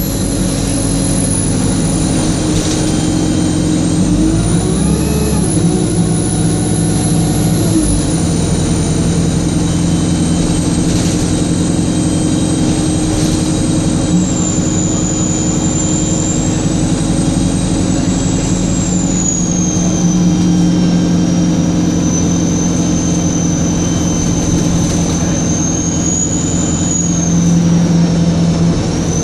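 Diesel bus engine running with a high-pitched turbocharger whine that wavers up and down with engine speed and drifts gradually lower, over a steady engine hum.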